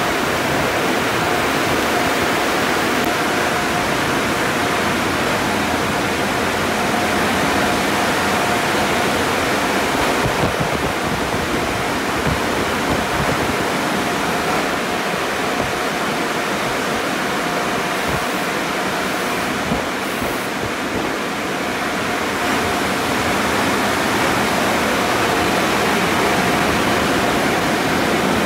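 Tunnel car wash running: a steady rush of water spraying down from the wash arches onto a car, with a steady machine whine underneath.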